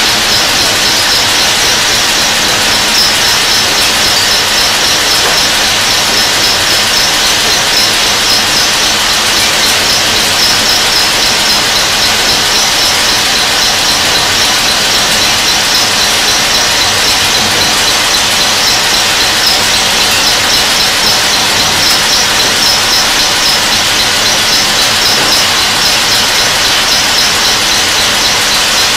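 Burgsmüller L5.4 thread whirling head cutting the thread of a screw element: a loud, steady, high-pitched squeal with a fast flutter over dense machining noise.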